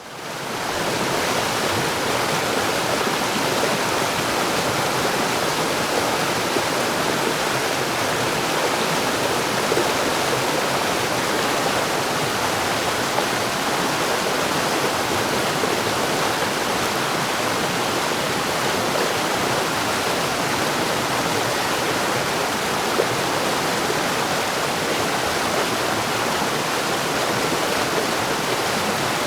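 Stream rapids: water rushing and splashing over rocks in a steady, even roar, fading in over the first second.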